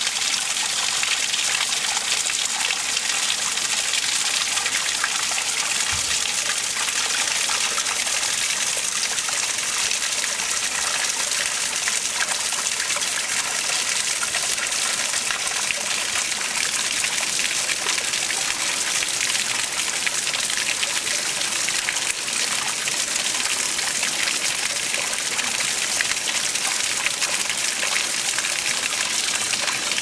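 Irrigation water in a rice-field ditch, flowing with a steady rush and trickle.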